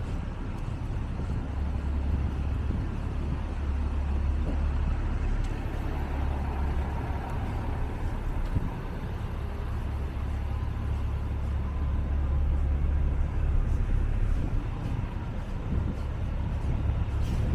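Steady motor traffic on a busy city boulevard: vehicles passing in a continuous low rumble, with no single event standing out.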